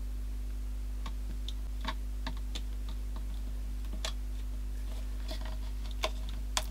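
Scattered light plastic clicks and taps as a clear plastic part of a Dyson V7 vacuum is pressed and worked into place by hand, with two sharper clicks near the end, over a steady low hum.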